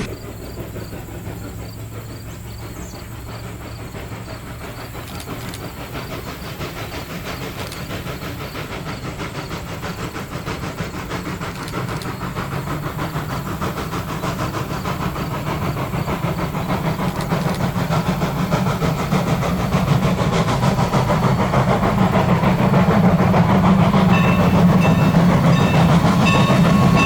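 Norfolk & Western 475 steam locomotive and its train approaching, a dense rapid rhythm of running gear and wheels on rail growing steadily louder. Near the end a steady whistle tone begins to come in.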